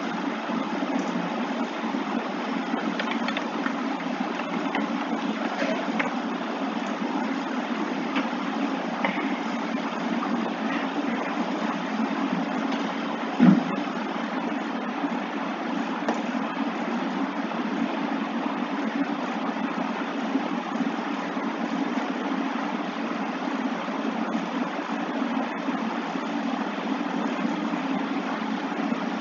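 Steady background hum with hiss, unchanging throughout, broken once by a brief thump about halfway through.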